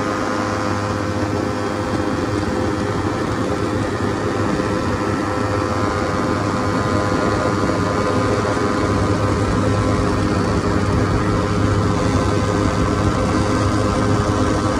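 Ultralight trike's engine running steadily, a constant pitched drone over rushing wind, during a forced-landing descent with its drive belt damaged in flight.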